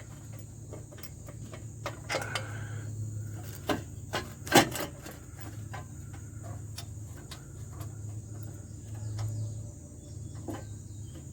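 Scattered metallic clicks and knocks as a front wheel hub assembly's mounting bolt is started by hand, with one louder clank about four and a half seconds in. A steady low hum and crickets chirping run underneath.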